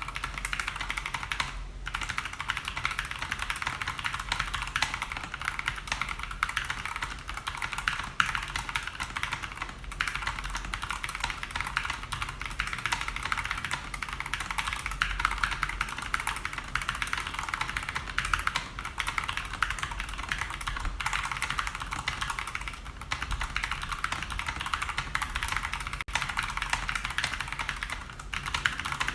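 Fast, continuous typing on a mechanical keyboard with red linear switches: a dense stream of key clicks and clacks, broken by a few brief pauses.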